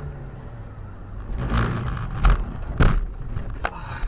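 Car on the move heard through a dashcam: a steady low road-and-engine rumble, with three sharp knocks in the second half, the second and third about 0.6 and 0.8 s apart.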